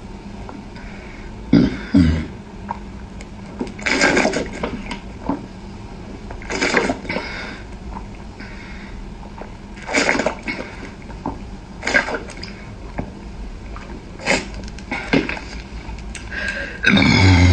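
Close-miked eating sounds: wet chewing and slurping in short bursts every two to three seconds, with a longer, louder slurp near the end.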